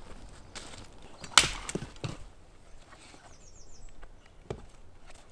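Firewood being handled to build a campfire: one sharp wooden crack about one and a half seconds in, then a few lighter knocks.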